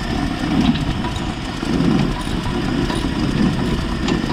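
Jeep AMC 232 inline-six engine idling steadily, with an exhaust leak where the manifold gasket has not sealed.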